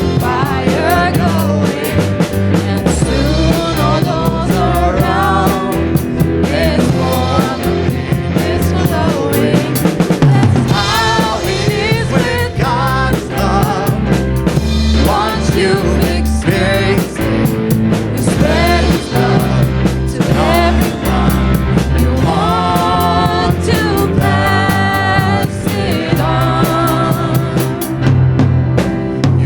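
Live band music: a drum kit keeping a steady beat under bass and a melody line with vibrato.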